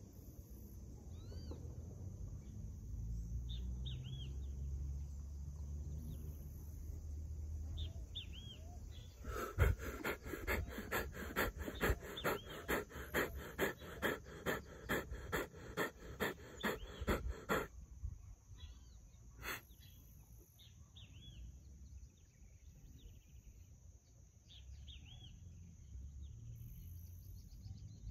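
A man breathing hard and fast through the mouth in a rhythmic breathing exercise, about two forceful breaths a second for some eight seconds, starting about nine seconds in. Small birds chirp before and after, over a low rumble in the first part.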